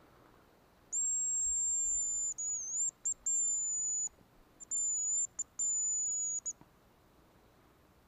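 Hazel grouse decoy whistle (manok) blown to imitate the hazel grouse's song: very high, thin whistled notes in two phrases, each a long held note followed by shorter wavering notes.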